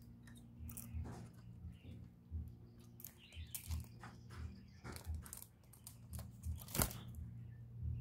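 Rustling, scraping and clicking from a caged spotted dove shuffling and fluttering right against the microphone, with irregular dull low thumps and one sharp click near the end.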